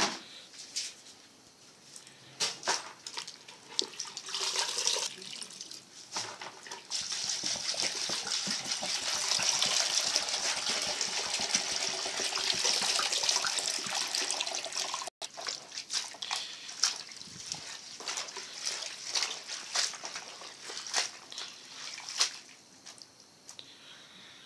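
Water poured from a plastic jerrycan into a basin of chopped managu and spinach leaves to wash them: a steady splashing stream for about eight seconds in the middle, with scattered short clicks and knocks before and after.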